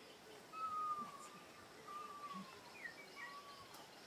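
Three thin, slightly falling whistled calls from an animal, with a few short chirps between the second and third, over a faint outdoor hiss.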